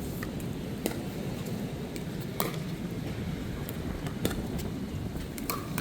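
Pickleball rally: paddles striking the plastic ball in sharp pops, one every one and a half to two seconds, over a steady low rumble.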